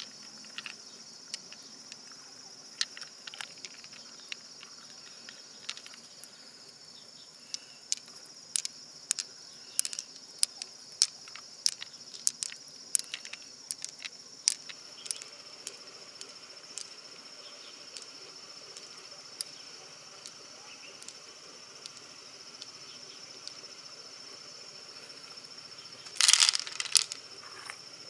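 Glossy pearls clicking against one another as they are plucked from an opened freshwater mussel and gathered in the hand: many short sharp clicks, thickest in the middle. A steady high insect drone runs underneath. About two seconds before the end there is a short, louder clatter.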